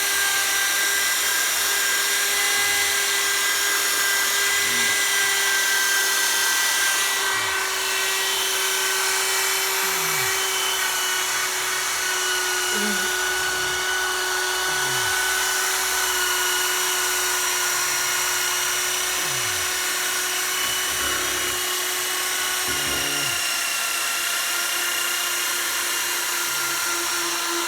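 Electric machine polisher running steadily, buffing a plastic headlight lens at medium pressure, its motor whine drifting slightly in pitch as the pressure changes.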